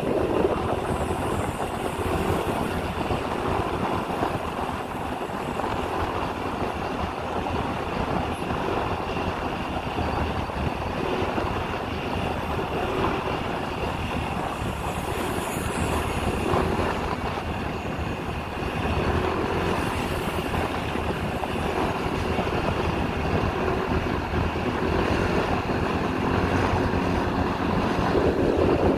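Motorcycle being ridden at a steady pace, its engine running steadily under road and wind noise.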